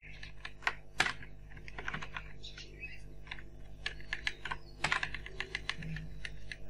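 Computer keyboard typing: a run of irregular keystrokes, some louder than others, over a faint steady hum.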